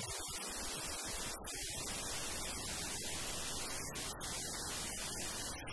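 Steady hiss, like static, with no distinct event.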